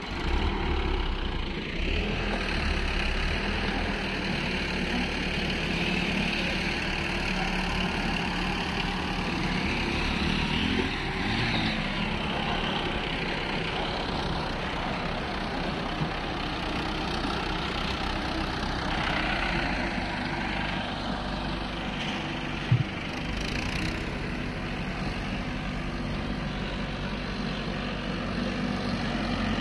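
Sonalika DI 750 tractor's diesel engine running steadily as it pulls a trolley loaded with soil, with one brief sharp knock about three-quarters of the way through.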